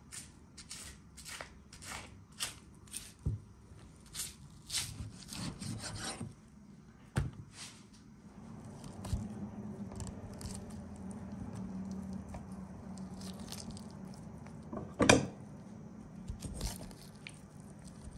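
A knife scraping and cutting along beef rib bones on a wooden board, frenching the bones clean. It starts as a quick run of short scraping strokes, turns into a longer steady rasping cut, and there is one sharp knock about three-quarters of the way through.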